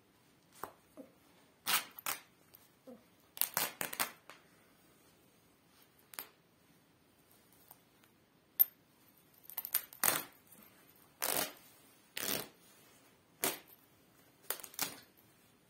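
Fabric of a Lotto track jacket being ripped by hand: about ten short tears, each under half a second, some coming in quick pairs, with quiet gaps between. A single sharp snap a little after halfway is the loudest sound.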